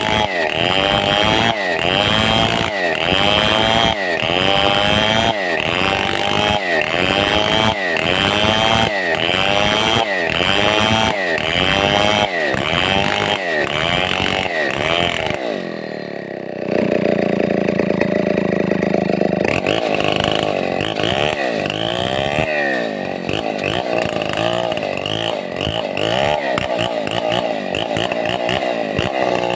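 Stihl 070 two-stroke chainsaw cutting timber under load. For the first half its pitch swoops up and down about once a second as the engine labours in the cut. About halfway through it settles to a steady pitch for a few seconds, then its revs rise and fall more quickly and unevenly.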